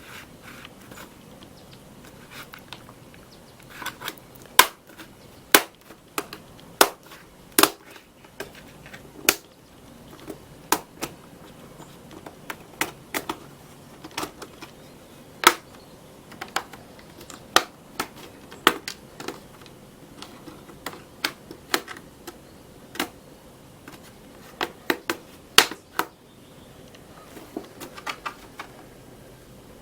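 Keyboard of an Asus X550Z laptop being pried out of its case with a small tool, its retaining clips snapping loose one after another: a long string of sharp, irregular clicks, roughly one or two a second.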